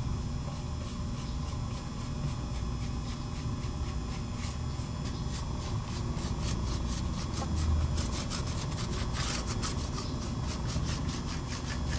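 A hand rubbing stain into woven cane webbing in quick, repeated scratchy strokes, a little louder about eight seconds in, over a steady low hum.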